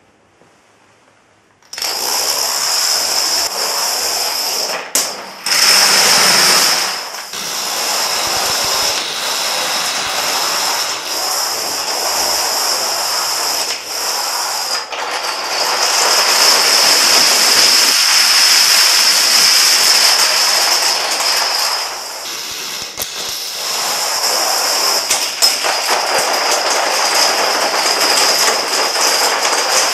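Plastic dominoes toppling in a long chain reaction: a dense, continuous clatter of small rapid clicks that starts about two seconds in and eases off briefly twice.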